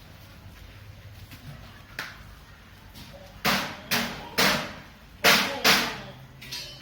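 Five sharp bangs, three close together and then two more, each dying away quickly, after a single faint click.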